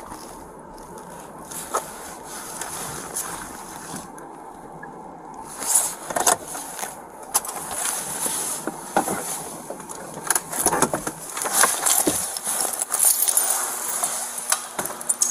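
Rustling, clicks and jingling of a police officer's duty gear and body camera as he moves in the driver's seat of a car and climbs out, the car door opening partway through. The clicks and rustles come thicker and louder in the second half.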